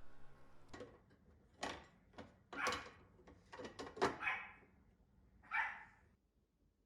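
Small Pomeranian dog barking in a series of short, separate barks, about six or seven over five seconds.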